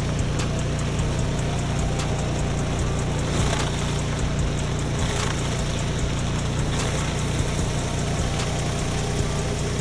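Cold-water pressure washer running: a steady engine drone under the hiss of the water spray.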